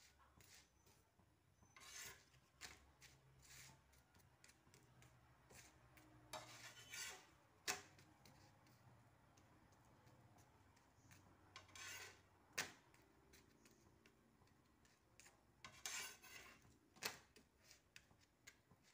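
Flat steel spatula scraping and tapping against an iron pan while a phulka is pressed and turned on it: short scrapes a few seconds apart, with several sharp taps.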